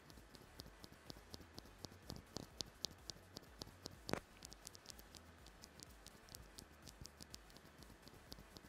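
Bare Cherry MX Black linear keyboard switch, its slider ground down on both wings and the back face, pressed and released over and over by hand. It gives faint clicks of the slider bottoming out and springing back, about three or four a second, with one louder click about four seconds in. It is a test of the slider's scratchiness after grinding, which to the tester's ear is only slightly less than a stock switch's.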